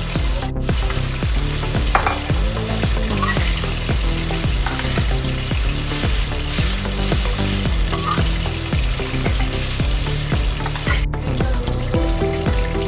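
Day-old cooked rice frying in a hot pan, sizzling steadily as a metal spatula stirs and scrapes it around. Music runs underneath, and the sound cuts out briefly twice, about half a second in and near the end.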